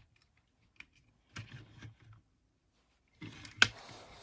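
Hard plastic action-figure parts being handled and pushed together: scattered light clicks and rubbing, with one sharper click about three and a half seconds in.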